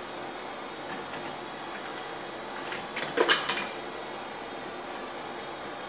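Homemade automated rifle-brass annealer running, with a steady hiss under short, damped metallic clinks of brass cases moving through the feed wheel and dropping: three small clusters, the loudest a little past three seconds in. The machine's parts are sprayed with rubberized sealer to stop the brass ringing.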